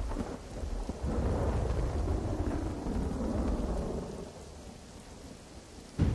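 Thunderstorm: a low rumble of thunder over the hiss of rain. It swells about a second in and dies away after about four seconds, then rises again suddenly near the end.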